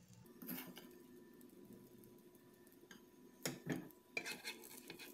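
A few faint clinks and taps of a steel spoon as mushroom filling is spooned onto an omelette in a dosa pan. One comes about half a second in and a small cluster comes near the end.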